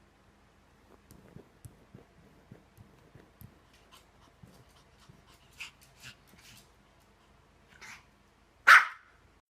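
A dog barks once, loudly, near the end, after a few faint small noises and quieter short sounds.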